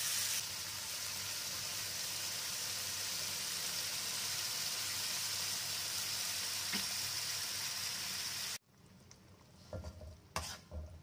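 Spice paste frying in oil in a pan, a steady sizzle as a metal spatula stirs it, cutting off suddenly about two thirds of the way through. After it, a few quieter knocks and scrapes of the spatula in the pan as the sauce is stirred.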